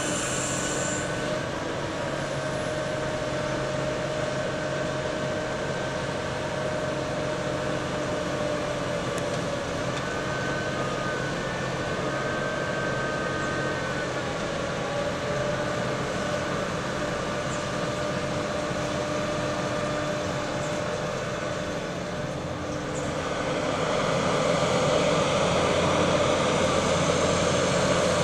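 Heavy construction machinery running steadily, with a few held whining tones over the engine noise. It grows louder a little over three-quarters of the way through.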